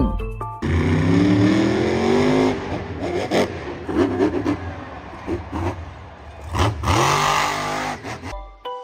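Car engine revving, its pitch climbing steadily for about two seconds and then climbing again near the end.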